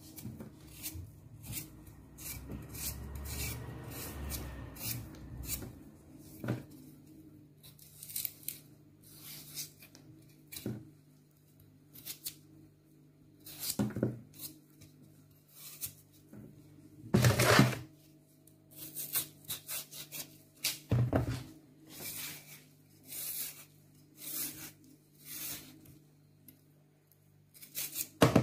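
Kitchen knife paring the skin off a raw potato by hand: a run of short, irregular scraping and slicing strokes, with a few louder knocks partway through.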